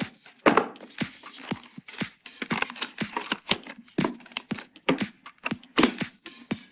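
PC parts and packaging being handled and fitted by hand: a run of irregular sharp clicks and knocks, a few a second, with rustling in between.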